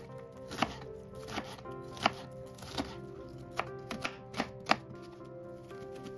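Chef's knife dicing an onion on a plastic cutting board: sharp knife strikes on the board, about one every 0.7 s at first, then four quicker strikes a little after halfway, the last the loudest. Soft background music plays underneath.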